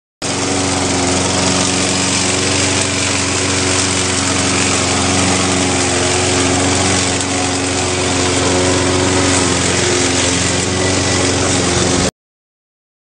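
Lawn mower running steadily at a constant speed, with a steady hum under the noise of the blade and engine. It starts suddenly at the beginning and cuts off suddenly about twelve seconds in.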